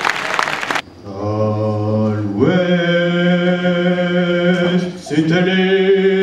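Applause that cuts off about a second in, then a man's voice droning long, steady held notes like a chant, sliding up into each new note, with a short break near the end.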